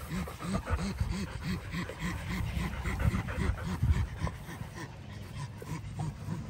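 A dog panting rapidly and steadily, about three breaths a second.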